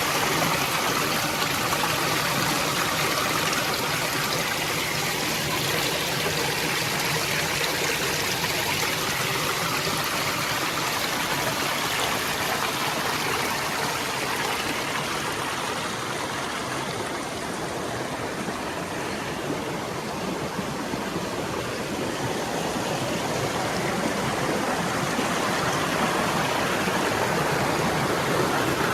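Stream water running, a steady rushing flow.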